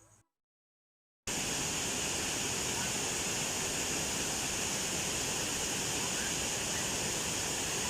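Waterfall rushing with a steady, even roar of falling water. It cuts in abruptly about a second in, after a moment of silence.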